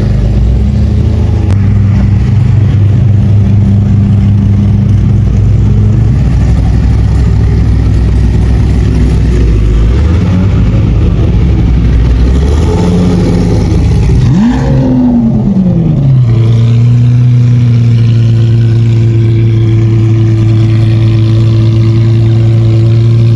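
Loud performance-car engines idling with a deep, steady drone. About 14 seconds in, one engine is blipped once, its pitch rising and falling back within about two seconds, and it settles into a steady idle.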